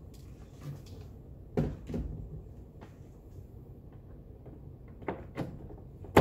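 Clear plastic wall-mounted paper towel dispenser being handled: a scattering of light knocks and clacks of hard plastic, then one much louder sharp clack near the end.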